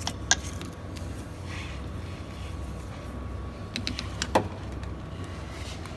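A few sharp clicks and taps of hand tools on the car, over a steady low hum; the loudest click comes about four and a half seconds in.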